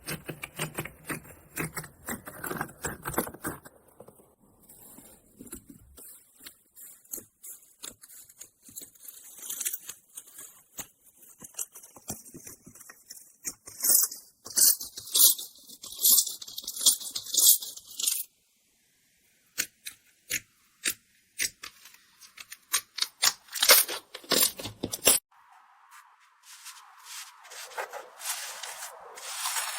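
Crunchy slime being pressed and worked by hand: dense runs of crackles and sharp pops, loudest around the middle, broken by a couple of brief silent gaps between clips.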